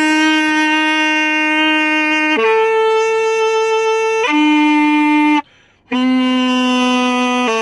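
Alto saxophone playing long held notes one at a time: a note, a higher note, back down, then a short break for breath about five and a half seconds in before two lower held notes follow.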